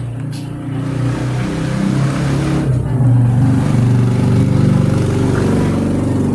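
A motor vehicle engine passing close by. It grows louder over the first few seconds, is loudest in the middle, and fades near the end.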